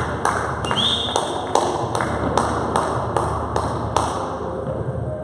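Sharp padel ball impacts in quick succession: about a dozen hits roughly every 0.4 s, stopping about four seconds in. A brief high squeak sounds about a second in.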